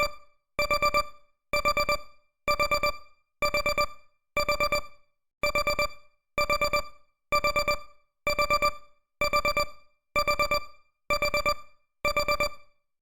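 Countdown timer alarm beeping: a simple electronic beep in quick groups of four, repeating about once a second.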